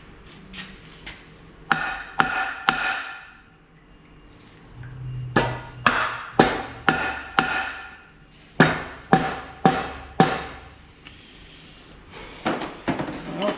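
Hammer blows on metal, struck in groups of three to five about half a second apart, each leaving a short metallic ring.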